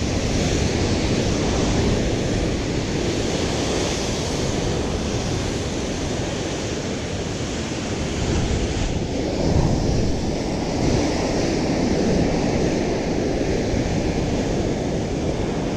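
Ocean surf breaking and foaming over rocks: a continuous loud rush of water, with wind buffeting the microphone. The surf swells louder about nine to ten seconds in as the water surges up.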